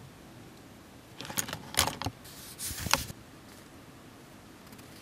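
Small hard plastic model-kit parts and hand tools handled at the workbench: a quick cluster of clicks, rattles and a short scrape about a second in, over in under two seconds.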